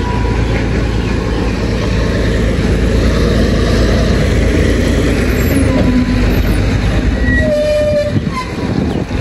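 Massey Ferguson 240 tractor's diesel engine running steadily under load, hauling a trolley heaped with chopped maize silage. A few short pitched tones sound briefly near the end.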